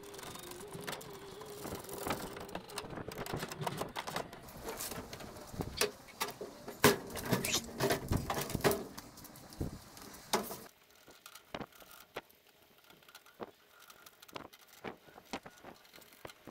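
Clicks, clinks and knocks of a steel tool cart being assembled by hand: bolts, washers and casters being fitted and the metal cart moved about. The clatter is busy at first, then about two-thirds through it drops to a few quieter, scattered clicks.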